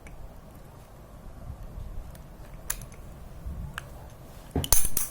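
Small metal clicks and taps as a circlip is pressed into place on a bicycle freewheel, a few faint ones and then a loud cluster near the end.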